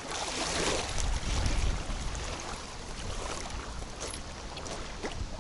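Strong gusty wind buffeting the microphone: a steady rush with a low rumble that swells about a second in, then eases.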